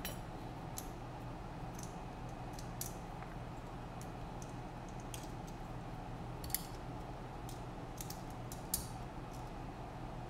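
Light, scattered clicks and ticks of small drone parts being handled and fitted by hand during reassembly, over a steady low hum.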